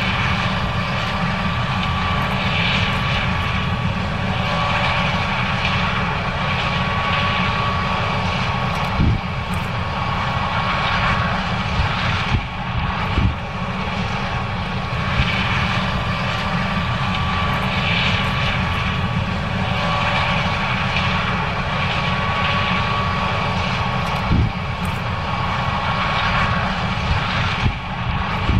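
John Deere S770 combine harvester running steadily while harvesting corn: a constant machinery drone with a steady high whine over it, and a few brief knocks.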